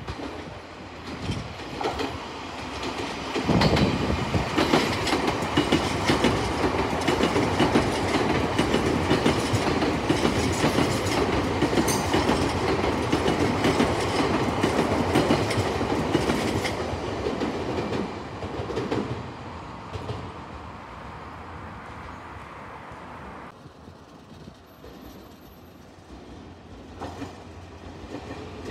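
Nankai 6200 series commuter train passing close by on ballasted track, with wheels clacking over the rails. The noise swells about 3.5 seconds in, stays loud for some thirteen seconds, then fades away.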